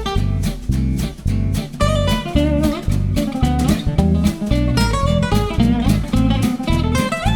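Background music: acoustic guitar playing with quick plucked and strummed notes over a steady bass.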